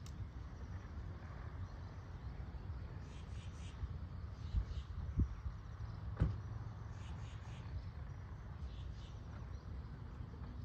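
Outdoor ambience: a steady low rumble with faint high chirps in short groups, and a couple of soft thumps about five and six seconds in.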